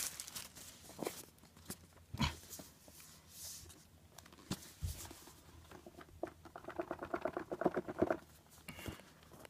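Faint handling of an iPad mini's box: scattered light taps and clicks. From about six and a half to eight seconds in comes a rapid stuttering squeak of box surfaces rubbing as the snug packaging is worked.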